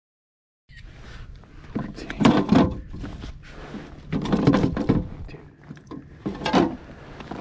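Knocks and rustling as a bass is handled on a plastic fish-measuring board in a kayak, in three loud bursts about two seconds apart, after a moment of dead silence.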